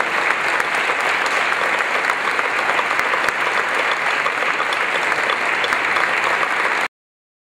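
Audience applauding, a dense steady clapping that cuts off abruptly near the end.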